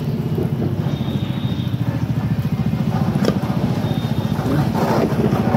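An engine running steadily, a low, rapid, even throb.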